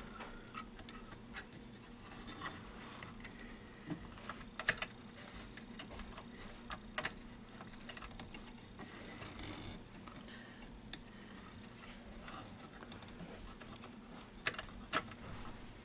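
Scattered small clicks and taps of fingers handling the metal parts, pulley and brake of a Teac A-4010S reel-to-reel tape deck while working a rubber drive belt into place, over a faint steady hum. A few sharper clicks stand out, among them two close together near the end.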